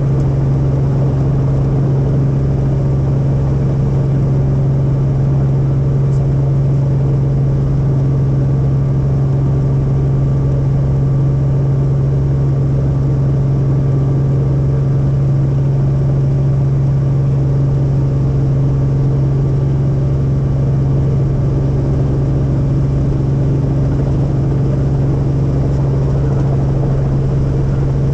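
Helicopter heard from inside the cabin: the rotor and turbine make a loud, steady drone with a strong low hum, unchanging throughout.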